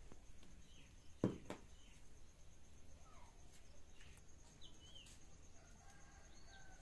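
Faint birds chirping here and there over a steady high insect trill. A sharp knock about a second in, with a lighter one just after it, is the loudest sound.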